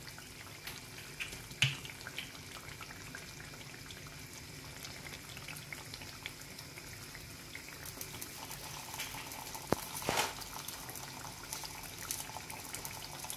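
Chicken karahi simmering over a gas flame while oil is poured onto a lump of hot charcoal sitting in a small steel bowl in the pan, sizzling as it smokes. There is a louder hiss about ten seconds in.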